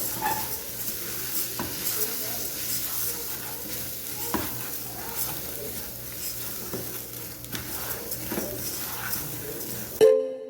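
Rice frying with garlic and bell pepper in a small pan, sizzling steadily while a spoon stirs and scrapes against the pan with scattered clicks. Near the end it cuts abruptly to a chiming musical tone.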